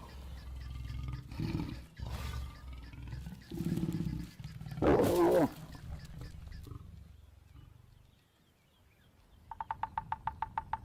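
Lions growling low and throatily while mating, with a loud snarl about five seconds in. Near the end comes a brief rapid run of about ten clicks a second.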